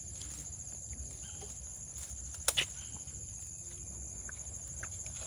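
Insects chirring in a steady, high, pulsing trill over a low background rumble, with one sharp click about two and a half seconds in.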